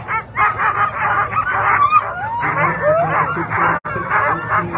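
A team of harnessed sled dogs barking, yipping and whining over one another in quick overlapping cries, eager to run at the start line.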